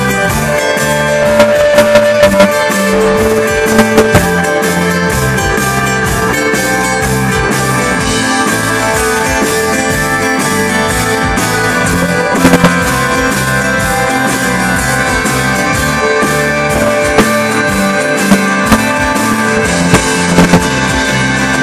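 Live rock band playing loudly, heard from the audience: electric guitars, bass and a drum kit.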